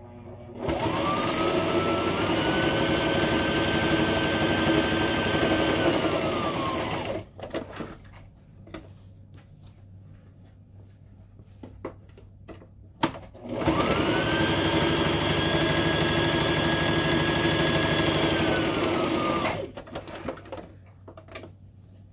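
Brother sewing machine sewing a long basting stitch in two runs of about six seconds each: the motor whine rises as it speeds up, holds steady while the needle runs, and falls as it stops. In the pause between the runs there are a few light clicks.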